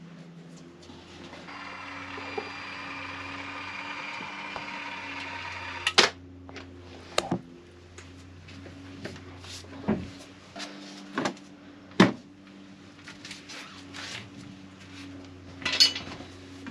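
A cordless caulking gun's motor whirring steadily for about five seconds as it pushes out adhesive, over a low steady hum. After it stops come several sharp knocks and clunks of wood and tools being handled.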